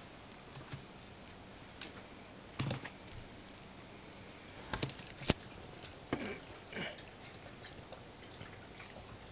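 Maine Coon kittens shuffling about on a blanket: scattered soft rustles and small taps, with one sharp click about five seconds in.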